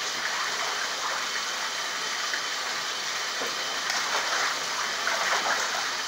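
A Canada goose splashing in a bathtub, dipping under and thrashing in the water over a steady rush of water. The splashing is heaviest about four to five and a half seconds in.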